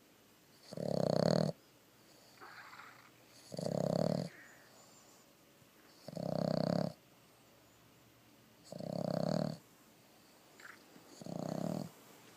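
A Boston terrier–pug mix dog snoring in its sleep: five loud snores, about one every two and a half seconds, with softer breaths between them. Snoring like this is typical of a short-muzzled breed.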